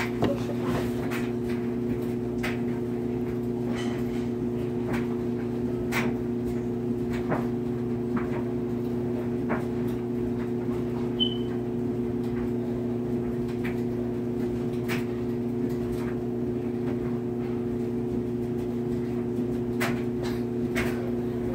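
Small electric shaver buzzing steadily, with scattered light clicks and taps over the hum.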